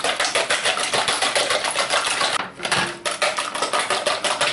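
Wire whisk beating four raw eggs in a plastic bowl: rapid, even clicking strokes against the bowl, with a brief pause about two and a half seconds in.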